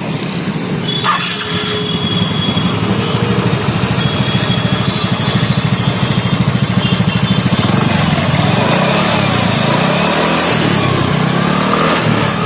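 TVS Ntorq 125 scooter's single-cylinder four-stroke engine running at idle with a steady pulsing exhaust note, then revved up and down a few times in the second half. A sharp click about a second in.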